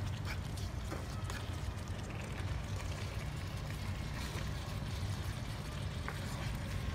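A wooden spatula stirring and scraping chunks of food in a frying pan on a portable gas stove, with a few light knocks against the pan, over a steady low rumble.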